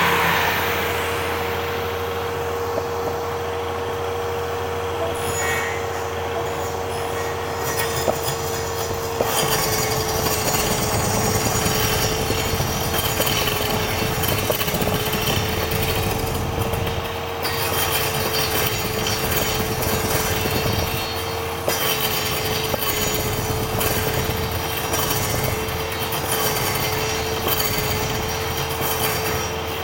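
Table-mounted circular saw running with a steady whine while a piece of wood is held against the spinning blade and turned, being shaved round into a cylinder. The rasping cutting noise gets heavier about nine seconds in.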